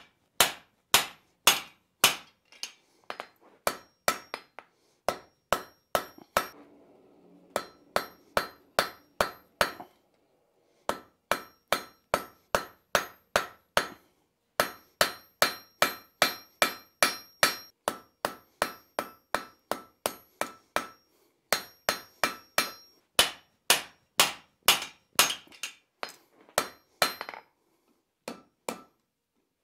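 Hand hammer forging a red-hot steel bar on an anvil, about two blows a second, many followed by a bright metallic ring; the stock is being fullered and thinned out. The blows pause briefly about ten seconds in and end with a few lighter taps near the end.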